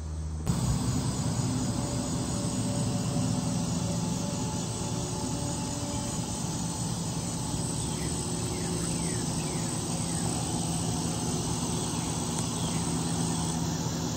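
Steady machine drone, a low hum over a broad rush of noise, starting abruptly about half a second in, with a few faint short chirps around the middle.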